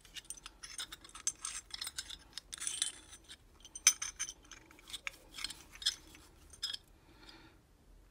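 Light metallic clinks and scrapes of the Fernox TF1 Omega filter's brass connection fittings being turned over in the hands, with one sharper clink about four seconds in; the handling dies away near the end.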